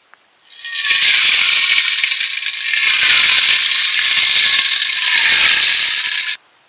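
Hot oil in a steel wok sizzling and crackling loudly as food deep-fries, building up about a second in and cutting off abruptly near the end.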